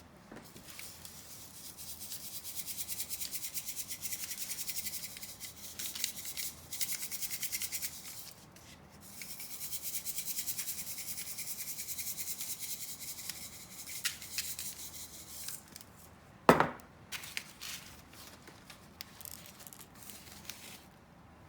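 Christmas sprinkles being shaken out of a plastic shaker container, a fast fine rattle in three long runs, the first two close together and the third longer, then a few scattered ticks and one sharp knock about two-thirds of the way in.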